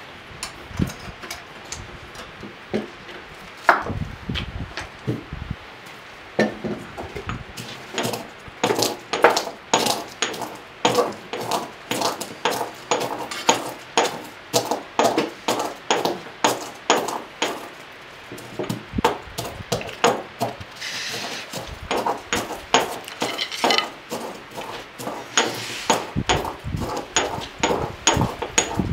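Knife chopping food on a wooden surface: a few scattered knocks at first, then a steady run of about three chops a second, with a brief scrape partway through.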